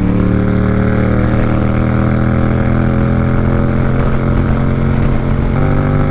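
Yamaha MT-07's 689 cc parallel-twin engine through a full Akrapovic titanium exhaust, cruising steadily in sixth gear. Its note sinks slightly, then shifts in tone about five and a half seconds in.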